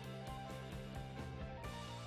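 Soft instrumental background music: held tones with a steady pulse of notes, about five a second.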